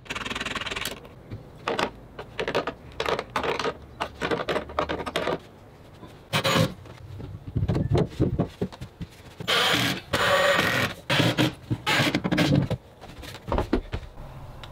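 A string of irregular knocks, clatters and scrapes from plywood pieces and metal bowls being handled and set into place, with a longer rattling stretch about ten seconds in.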